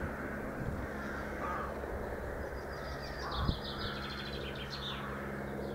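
Birds calling, with a rapid high chattering call through the middle, over the steady low drone of a diesel-hauled train receding into the distance. A single brief low thump about three and a half seconds in.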